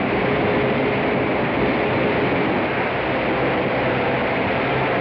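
Floodwater rushing through a blown-up dam: a loud, steady rushing noise that comes in suddenly and holds without a break.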